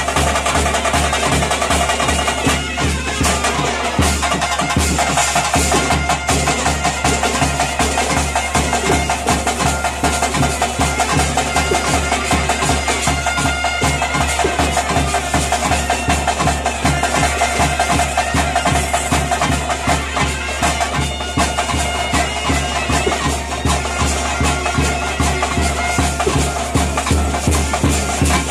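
Bhuta kola ritual band playing: a reedy double-reed pipe holding long notes over a fast, steady drumbeat.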